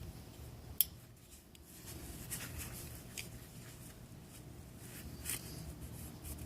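Faint handling noises: a sharp click just under a second in, then a few light ticks and rustles over a low steady room hum.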